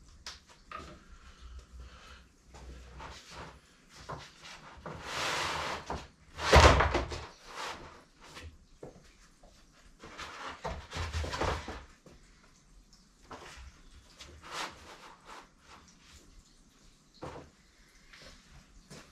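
Handling noises from a person moving objects about: scattered knocks and rustles, with one loud thump about six and a half seconds in.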